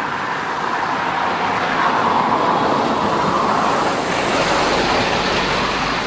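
Steady rushing noise of road traffic passing, a little louder from about two seconds in.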